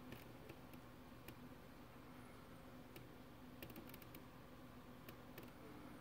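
Near silence: room tone with a low steady hum and scattered faint clicks.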